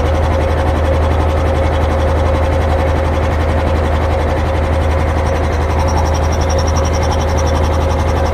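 Puma 10 hp three-piston belt-driven air compressor, driven by a three-phase electric motor, running steadily under load as it pumps up its tank. It carries a deep even hum and a steady mid tone, with no change in speed.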